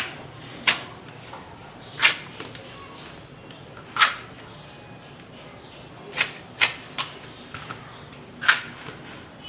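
Elephant apples (chalta) being sliced on a boti, the curved floor-mounted blade. Each stroke through the hard fruit gives a short, sharp crack, about seven in all, irregularly spaced a second or two apart.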